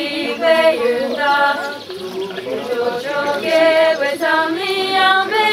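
A group of women singing a Tibetan song together, unaccompanied, with long held notes that bend between pitches.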